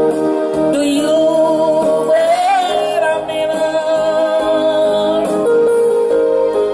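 A man sings through a microphone over an instrumental backing, holding one long note through the middle.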